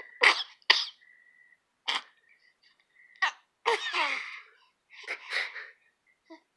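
A run of short sneezes and snuffly snorts through a stuffy, blocked nose, with a thin whistle early on and a brief squeaky cry about four seconds in.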